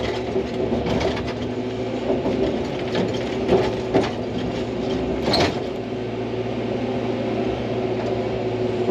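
Hydraulic excavator's diesel engine running steadily, with scattered knocks and clanks, the loudest about three and a half, four and five and a half seconds in.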